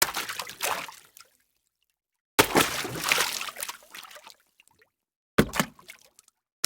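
Three separate water splashes, each starting suddenly and dying away with a trickle of water; the second is the longest, about two seconds.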